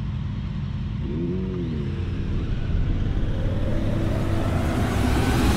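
Motorcycle engine and road noise while riding, likely from a Honda Africa Twin parallel-twin. About a second in the engine pitch briefly rises and falls, and the sound grows steadily louder through the second half.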